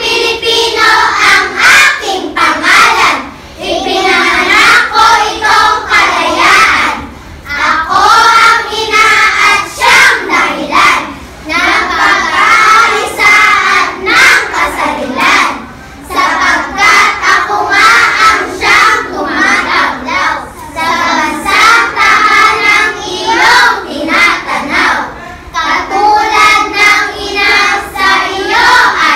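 A group of young children's voices in unison, delivering a Filipino poem as a choral performance. The phrases are broken by short pauses every few seconds.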